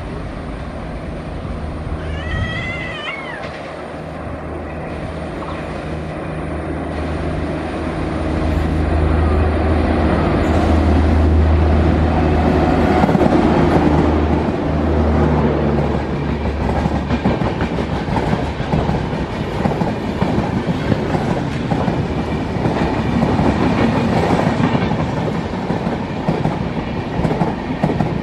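WAP7 electric locomotive running through the station without stopping: a low steady hum that grows louder as it nears and passes. Then its LHB passenger coaches rush by with a rapid clickety-clack of wheels on rail.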